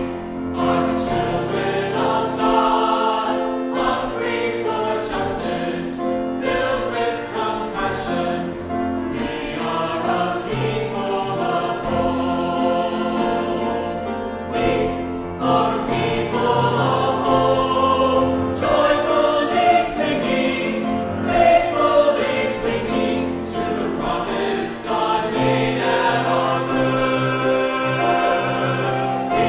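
Music: a choir singing sustained, flowing lines over instrumental accompaniment with steady bass notes.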